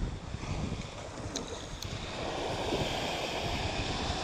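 Sea waves surging and washing over shoreline rocks, with wind gusting on the microphone. Two short clicks about a second and a half in.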